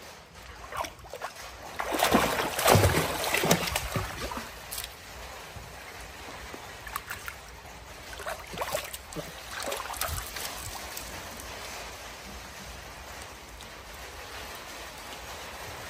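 Water splashing and sloshing in a pool as a monkey plays in it, loudest in a burst of splashes about two to four seconds in, then lighter scattered splashes and a steady trickle.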